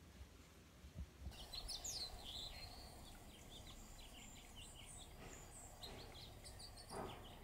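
Hummingbirds chirping: many quick, high chips scattered over a faint background hiss, starting about a second in.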